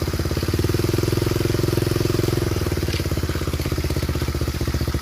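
Engine of a home-built aircraft running with a fast, even beat, getting a little louder in the first couple of seconds and then easing back.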